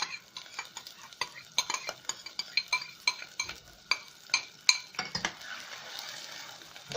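Onion in hot oil in a pot being stirred with a spoon, which clicks and scrapes against the pot two or three times a second, with a faint sizzle of frying underneath. The clicks ease off after about five seconds, leaving a softer hiss.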